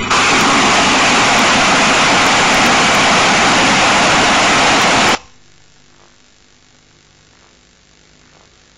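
Rockets fired in a salvo from an attack helicopter: a loud, steady rushing roar that starts suddenly and cuts off abruptly after about five seconds, leaving a faint hiss.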